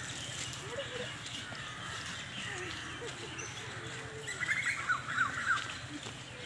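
Birds chirping over a steady outdoor background, with a quick run of repeated high chirps a little past the middle.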